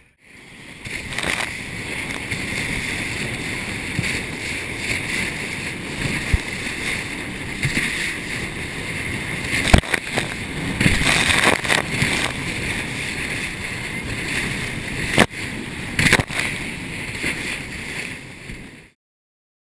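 Motorboat running through choppy sea, heard from a camera mounted low on the hull: a steady rush of wind and splashing spray, with a few sharp knocks about ten and fifteen seconds in. The sound cuts off suddenly just before the end.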